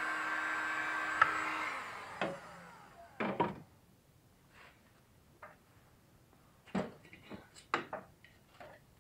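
A machine with a small motor running with a steady whir, switched off with a click about a second in and winding down. Then scattered knocks and clatter of tools or wood being handled.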